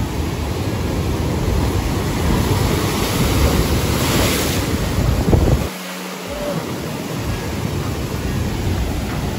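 Ocean surf surging over a rock shelf and pouring down into a sea hole, with wind buffeting the microphone. A wave breaks close by in a loud splash about four seconds in.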